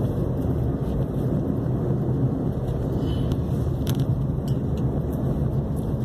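A car driving on a paved road, heard from inside the cabin: a steady low rumble of engine and tyres.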